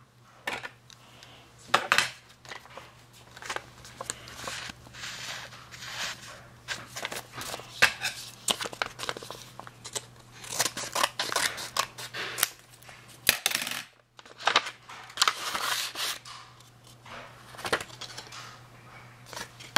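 A paper envelope being handled and cut open with small scissors: irregular rustling and crinkling of paper, with scissor snips and sharp clicks throughout.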